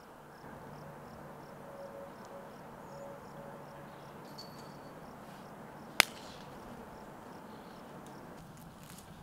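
A single sharp snap about six seconds in, over a steady outdoor background with faint, evenly repeated high chirps in the first few seconds.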